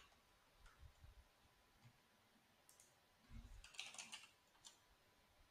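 Near silence with a few faint computer-keyboard clicks, a short cluster of them about four seconds in.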